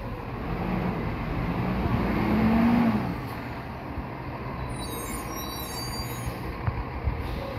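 Automated side-loader garbage truck's engine revving up as the truck pulls away, its pitch rising for about three seconds, then settling into a lower, steady running as it moves off.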